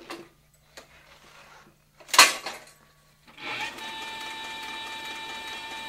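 Cowboy CB4500 leather sewing machine: a few light clicks, then a loud sharp clack about two seconds in. Past halfway a steady whine from its motor starts and holds.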